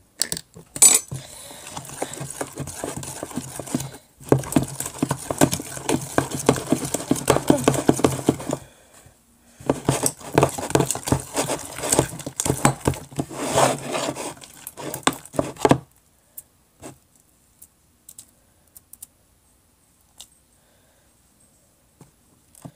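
Spoon stirring slime glue and activator in a mixing container: rapid clicking and scraping in two long stretches of about eight and six seconds, then only a few single clicks.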